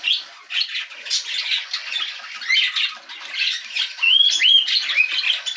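Budgerigar chicks squawking repeatedly in short, harsh calls, with a couple of rising-then-falling chirps about four seconds in.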